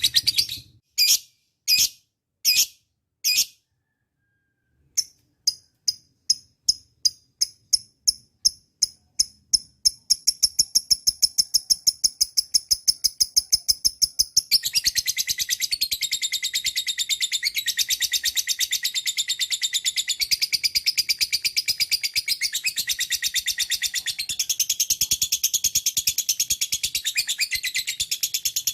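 Lovebird calling: a few separate high chirps, a short silence, then chirps that quicken from about five seconds in into a long, fast, continuous trill. The trill grows denser and fuller about halfway through and keeps going.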